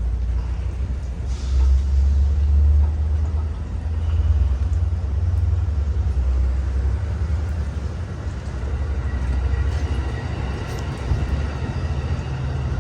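Amtrak San Joaquin passenger train pulling out of the station, its cars rolling past with a steady, loud low rumble.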